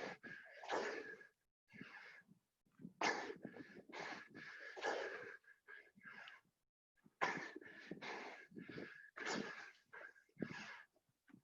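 Hard, wheezing breaths from people exerting themselves through a set of burpees. They come in irregular gasps with short pauses between them.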